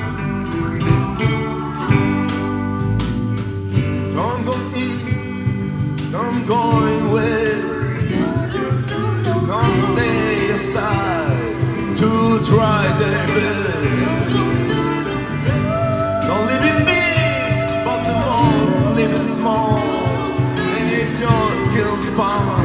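Live band playing an instrumental passage on acoustic guitar, electric guitar, bass guitar, cajón and keyboard, with steady strummed and struck rhythm at first. From about four seconds in, a lead line slides and bends in pitch over the accompaniment.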